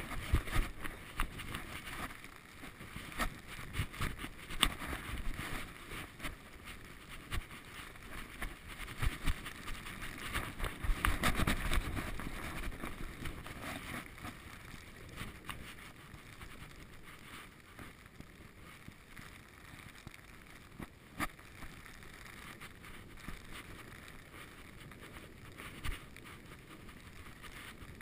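Handling noise from a covered action camera: irregular rustling and short knocks, busiest in the first half with a louder rubbing stretch around the middle, then a few scattered knocks over a faint hiss.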